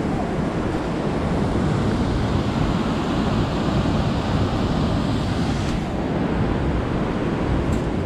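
Whitewater of a mountain river rushing over rocks and cascading through a granite gorge below a footbridge, a steady, unbroken rush of water.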